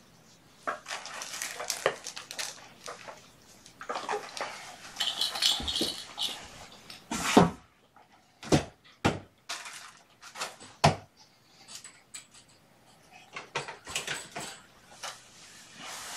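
Rustling and clattering of things being handled and set down, with four sharp knocks in the middle, then lighter scattered clicks.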